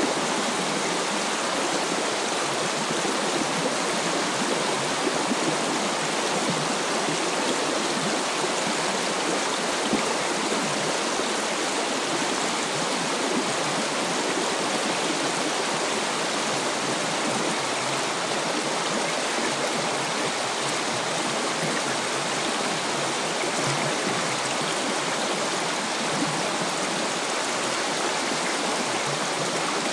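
Shallow river running steadily over a gravel bed: a continuous, even rush of flowing water.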